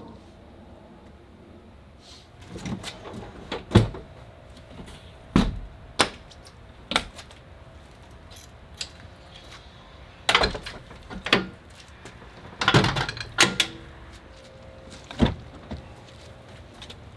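Clunks, clicks and latch knocks from the doors and tailgate of a Jeep Gladiator and from gear being handled around the truck. There are about nine sharp knocks at irregular intervals, with several close together two-thirds of the way through.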